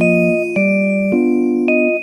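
Background music: a gentle instrumental tune of struck, chiming chord notes that change about twice a second.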